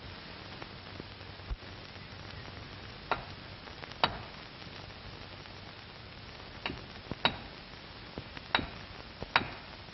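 A hand tool striking a rock wall, chipping at it in sharp, irregular knocks: two about three and four seconds in, then several closer together near the end. A steady hiss from the old film soundtrack runs underneath.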